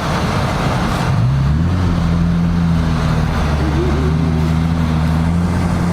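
Car engine rising in revs about a second in, then holding steady, over a hiss of road noise.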